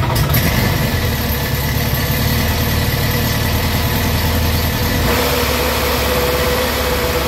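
Rotax 912 four-cylinder aircraft engine running steadily at idle, with a slight change in its tone about five seconds in.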